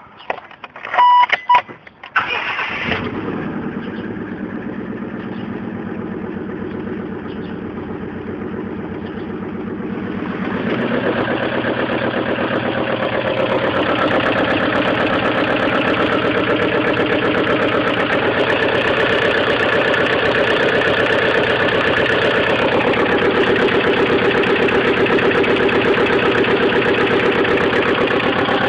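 1998 Mazda Protege four-cylinder engine cranking and catching about two seconds in, after two short beeps, then idling with the knock that marks the engine as bad. About ten seconds in it gets louder and stays there.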